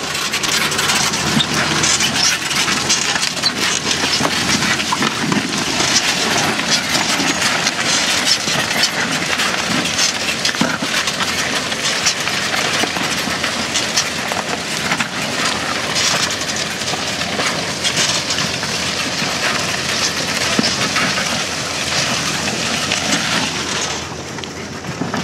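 John Deere 6830 tractor at work ploughing, heard as a steady rough noise full of short crackles, with no clear engine note.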